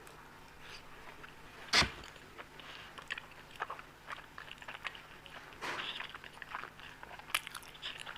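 Close-miked eating of Indian sweets: irregular wet chewing and mouth smacks with small clicks, and one louder burst of noise just under two seconds in.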